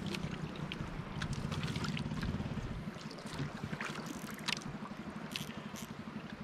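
Water lapping and trickling against the hull of a small outrigger canoe, with scattered short clicks and splashes over a low, fast pulsing hum.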